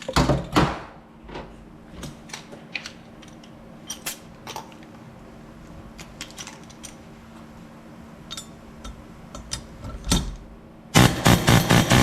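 Light metal clinks and taps of tools and parts being handled, then near the end a quick run of loud metal-on-metal strikes as a new oversized valve guide is driven into the aluminium cylinder head.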